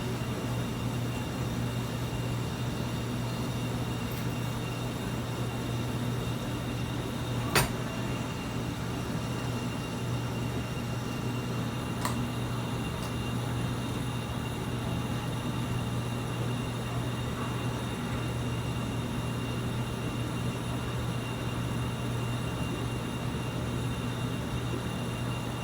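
Steady low machine hum with a faint high whine over it, broken by one sharp click about seven and a half seconds in and a fainter click a few seconds later.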